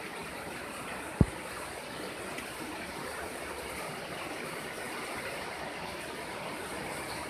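Steady rush of flowing water in a fish hatchery's flow-through incubation system of Weiss jars holding carp eggs, with one brief low thump about a second in.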